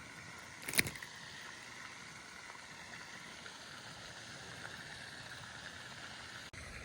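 Faint steady outdoor background hiss, with one brief sharp knock about a second in.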